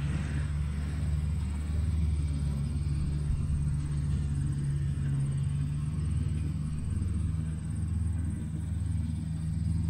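Diesel engine of a John Deere tracked log loader running with a steady low drone.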